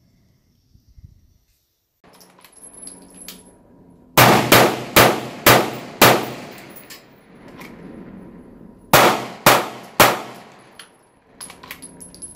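Gunfire from a short-barrelled 5.56 AR pistol with a 10.5-inch barrel: a string of about five shots roughly half a second apart, each with a ringing tail. After a pause of a few seconds comes another quick string of three or four shots.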